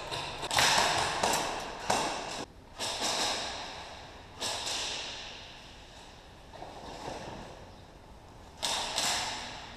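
Airsoft gunfire in a large warehouse hall: sharp cracks at irregular intervals, each trailing off in a long echo. A cluster comes in the first few seconds, a single crack around the middle, and a quick run of several near the end.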